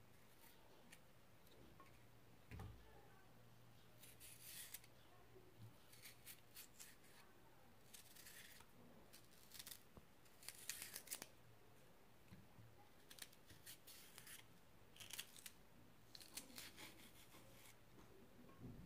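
Faint scraping of a small paring knife peeling the stringy skin off cardoon stalks, in short clusters of quick strokes every second or two.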